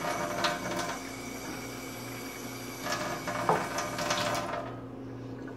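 Water pouring into a cup for about four and a half seconds, with a few light clinks, then stopping.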